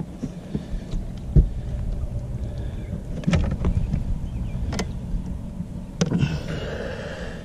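A few sharp knocks over a steady low rumble, the loudest about a second and a half in, typical of gear and the hull of a fishing boat being knocked about.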